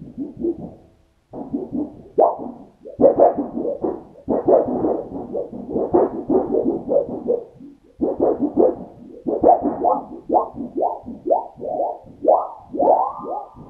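Large thin steel sheets flexed back and forth by hand like wobble boards, giving a loud warbling run of short swooping pitches that pauses briefly a couple of times.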